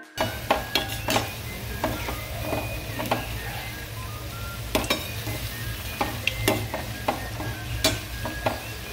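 Methi gota (fenugreek and gram-flour fritters) sizzling as they deep-fry in hot oil in a steel pan. A perforated steel slotted spoon clinks and scrapes against the pan at irregular moments as it turns them. A steady low hum runs underneath.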